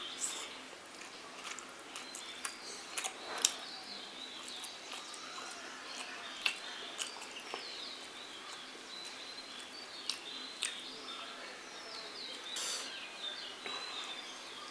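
Scattered sharp clicks and smacks of someone eating a meal, with birds chirping in the background throughout.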